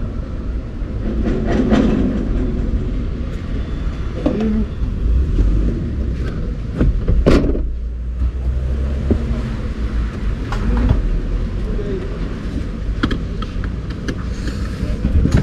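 Low, steady vehicle engine rumble with faint voices in the background, and one sharp knock about seven seconds in.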